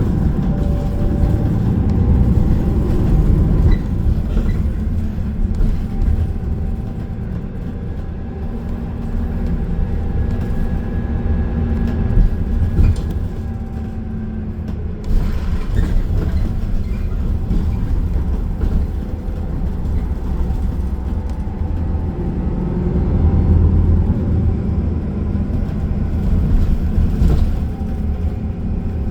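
Transit bus driving, heard from inside the cabin: a steady low engine and road rumble, with a faint engine whine that shifts in pitch as it moves through traffic.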